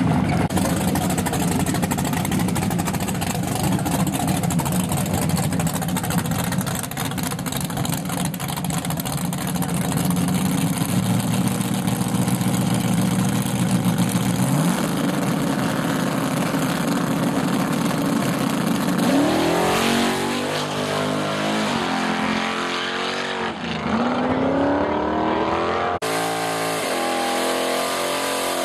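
Drag-racing car engines running loud at high revs, then revving in repeated rising and falling sweeps in the last third.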